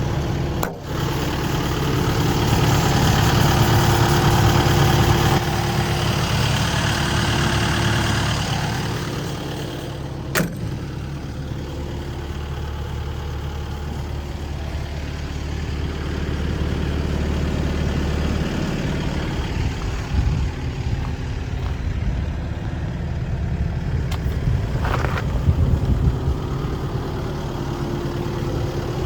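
Sany SY135C excavator's Isuzu diesel engine running steadily at idle, with one sharp click about ten seconds in.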